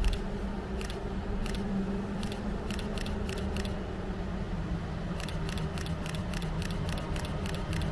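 NS Class 1700 electric locomotive approaching at a distance, a steady low hum, with two runs of sharp ticks, the first about a second in and the second from about five seconds on.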